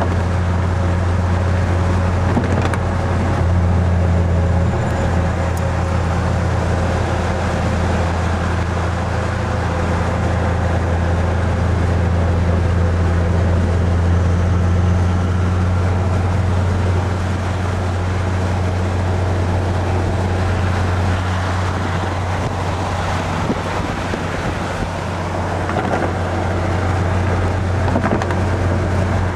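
Steady low engine drone with tyre and wind noise, heard from inside a car cruising at highway speed.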